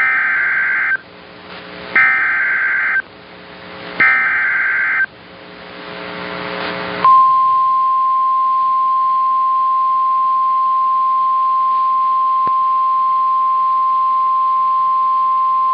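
Emergency Alert System SAME header: three one-second bursts of screeching digital data tones, a second apart, that encode the coming warning. A short rising hiss of radio static follows, then the NOAA Weather Radio 1050 Hz alert tone starts about seven seconds in and holds steady for about nine seconds, signalling the start of a warning broadcast.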